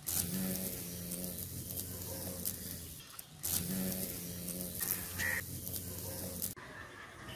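Large black carpenter bee buzzing in flight among leaves: a low steady wing hum in two spells of about three seconds each with a short break between, cutting off near the end.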